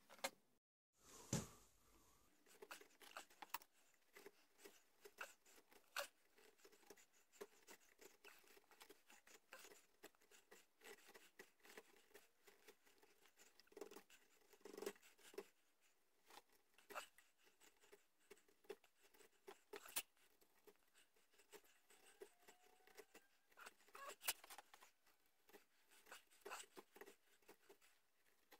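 Faint, irregular scraping and clicking of a carving chisel paring small cuts into a wooden rifle stock by hand.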